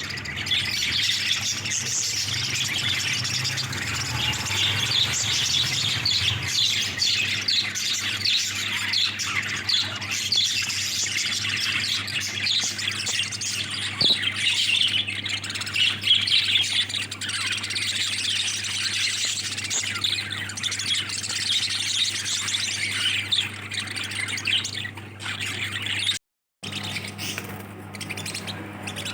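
A flock of caged budgerigars chattering continuously: dense overlapping chirps, warbles and squawks, over a steady low hum. The sound cuts out for a split second near the end.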